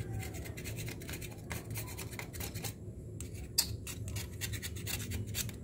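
Old gasket being scraped off a Honda Bravo motorcycle engine's crankcase face, heard as a quick, irregular run of short scratches with one sharper click partway through.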